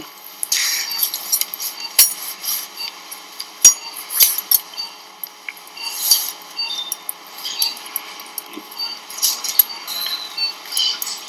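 Steel surgical instruments, retractors and forceps, clicking and clinking against each other as they are handled while the rectus abdominis muscle is retracted. Irregular sharp clicks, the loudest about four seconds in.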